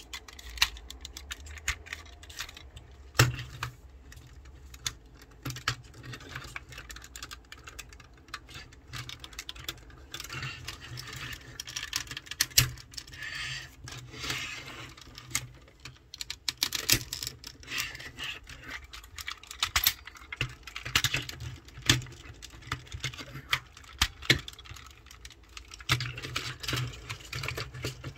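Plastic parts of a Tobot transforming car-robot toy clicking and rattling as it is folded by hand from car into robot: irregular small clicks throughout, with a few sharper snaps.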